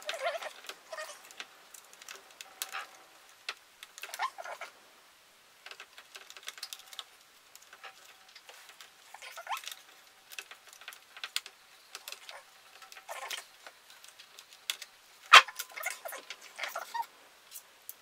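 Aluminium top case of a first-generation MacBook Pro being pried up by hand: irregular small clicks, taps and scrapes of metal and plastic, with one sharp, louder click about fifteen seconds in.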